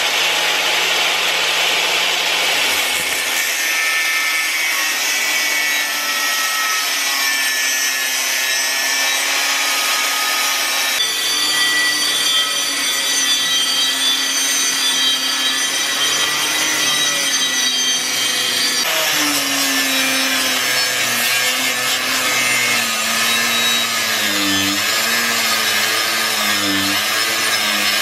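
Angle grinder with an abrasive disc grinding into the steel blade of a cleaver: a steady high motor whine over the hiss of the disc on metal. The tone shifts abruptly twice, and in the later part the pitch wavers as the disc is pressed into the cut.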